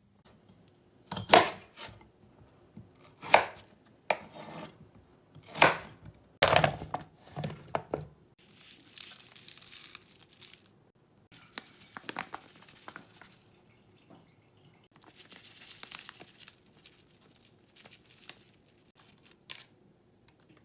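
A knife chopping on a cutting board, most likely cutting potatoes: several sharp, loud chops in the first eight seconds, then quieter, longer scraping sounds, with one more sharp chop near the end.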